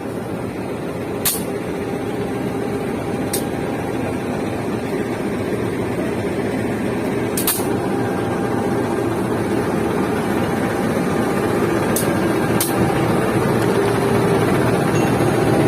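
Diesel locomotive of a departing passenger train running, its drone growing steadily louder as the train pulls out, with a few short, sharp hisses of air.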